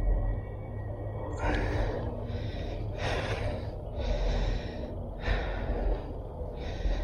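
A person breathing hard and fast close to the microphone: about six noisy breaths, each under a second, beginning about a second and a half in, over a steady low rumble.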